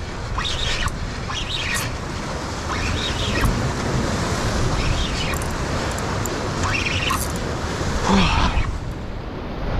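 Waves breaking and washing against a rock wall, with wind buffeting the microphone, and occasional short clicks and knocks over the steady surf.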